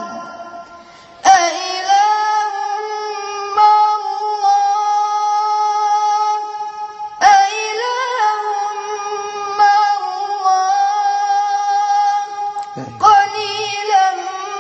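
A boy's voice reciting the Qur'an in a slow, melodic chant (tajweed), holding long high notes through drawn-out phrases. After a short breath pause at the start, he sings three long phrases, each beginning with a sharp rise.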